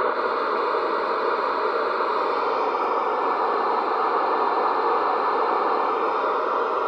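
CB radio static: a steady hiss from the radio's speaker between transmissions, with no voice on the channel.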